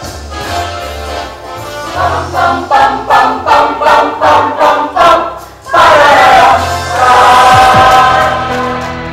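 Student choir singing an upbeat song with a regular pulse of about two to three accents a second. About five and a half seconds in it cuts off and a louder station-ident jingle takes over: a falling sweep into a held chord.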